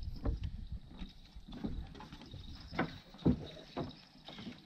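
Footsteps thudding on the wooden planks of a dock, a handful of irregular knocks, the loudest a little past three seconds in.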